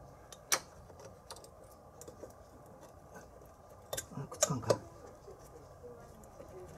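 Scattered light clicks and metal clinks of tools and parts being handled, with a quick cluster of knocks about four seconds in.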